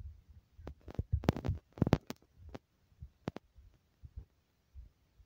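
Irregular low thumps and sharp clicks on a handheld camera's microphone, jostled as the person filming walks.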